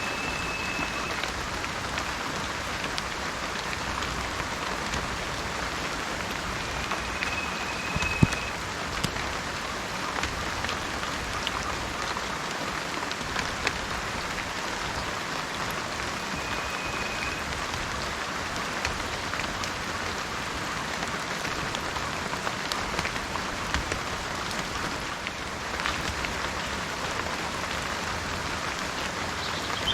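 Steady rain falling on a surface, an even hiss dotted with the ticks of individual drops, with one sharper tap about eight seconds in. Three faint, brief high whistles sound over it, near the start, about seven seconds in and about sixteen seconds in.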